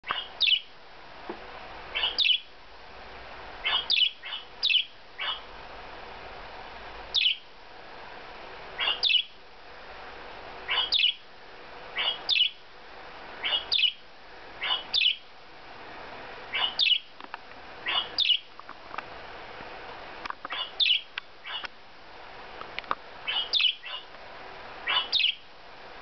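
Budgerigar chirps: short, sharp calls, often in pairs, every one to two seconds, over a steady low hum. A pet budgie is calling back and forth with a recording of another budgie.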